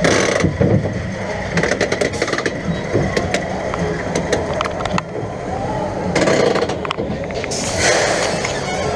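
Clanking and rattling of a flat ride's metal cage restraints as they are pushed and tugged shut, with many sharp metallic clicks, over steady fairground background noise.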